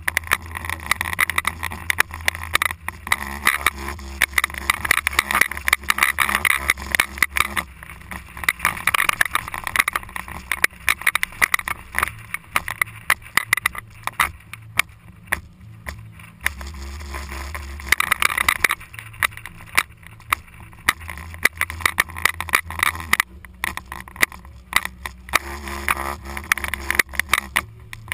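SUV driving over desert sand, heard from a camera mounted on the outside of the vehicle: wind buffets the microphone with irregular crackling over a low, steady engine and tyre rumble.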